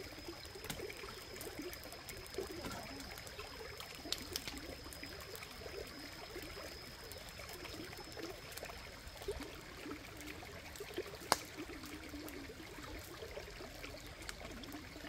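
A stream trickling over rocks, with an open wood fire crackling through it in small sharp pops and one louder pop about eleven seconds in. A thin steady high tone runs underneath and stops about nine seconds in.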